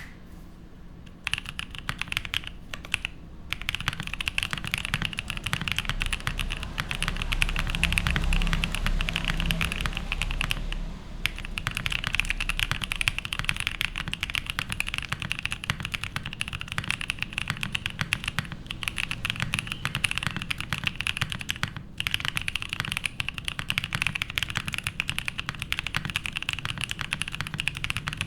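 Steady fast typing on a MONOKEI x TGR Tomo top-mount mechanical keyboard with lubed Boba U4T tactile switches, a poly plate and GMK keycaps: a dense stream of keystrokes, broken by a few short pauses.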